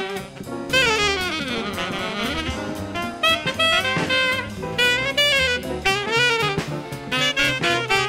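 Jazz combo recording: an alto saxophone plays a lead line over bass and drums, sweeping down in pitch and back up about a second in, then continuing in short phrases.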